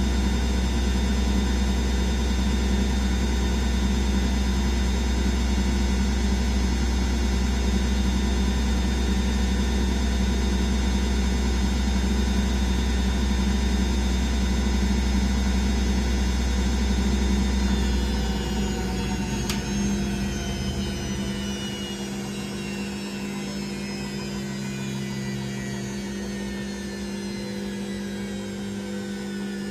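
Candy Aquamatic Aqua 1000 T washing machine spinning steadily in its final gentle spin at 800 rpm. About two-thirds of the way through the drive cuts out, a click follows, and the drum coasts down, its whine falling slowly in pitch as the spin ends.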